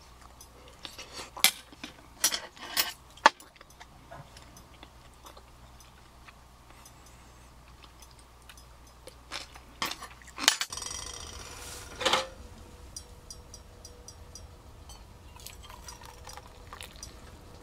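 A metal spoon clinking and scraping against a stainless steel pot in a cluster of sharp strokes, and again a few more later. About ten seconds in it gives way to water being poured from a kettle into a stainless steel mug, with a loud clink near the start of the pour.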